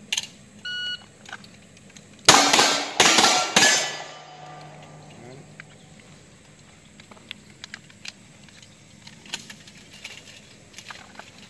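An electronic shot timer gives its start beep, and about a second and a half later a handgun fires a quick string of four or five shots, with the steel plates ringing after the hits.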